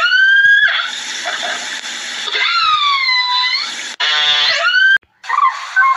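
Animal calls that glide in pitch: a buzzy call rising to a high note, a whining call that dips and rises again, then the first call repeated the same way about four seconds in. A short gap of silence follows, then a noisier stretch of calls.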